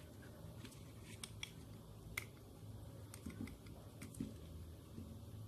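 Faint scattered clicks and taps of small parts and wires being handled during wiring, with one sharper click about two seconds in, over a low steady hum.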